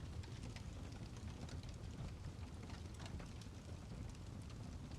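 Steady rain falling, an even hiss with scattered drop taps over a low rumble.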